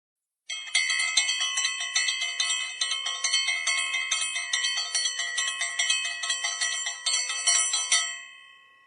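A small metal bell struck rapidly and continuously, many strikes a second, for about seven seconds, then left to ring out and fade near the end.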